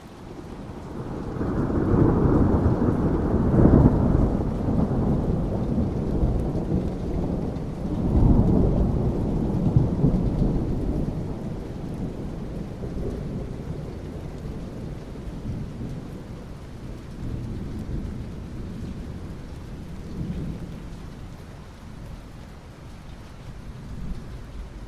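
Rain falling steadily on asphalt while a long roll of thunder rumbles through. The thunder swells about a second in, peaks twice, near 3 s and again near 8 s, then slowly fades away.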